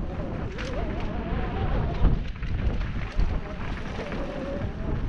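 Mountain bike descending a dirt forest trail at speed, heard from a helmet-mounted camera: wind buffeting the microphone, tyres rumbling over the dirt and the bike rattling over roots and bumps, with a hard jolt about two seconds in. A faint wavering tone comes and goes above the noise.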